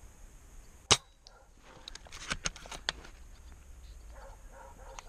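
A single sharp airsoft rifle shot about a second in, then a few lighter clicks a second or two later.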